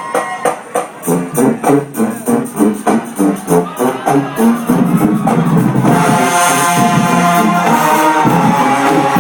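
High school marching band playing: drums and brass in short, punchy repeated hits, giving way about six seconds in to brass holding loud sustained chords.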